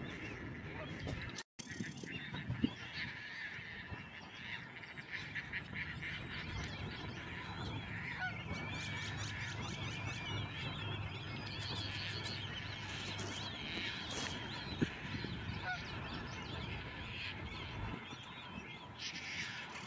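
Many birds calling over one another in a steady, dense chatter. The sound cuts out for an instant about a second and a half in.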